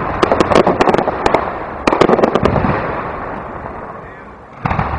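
Aerial fireworks bursting overhead: clusters of sharp cracks and pops at the start and again about two seconds in, fading to a rumbling tail, then a new low boom near the end.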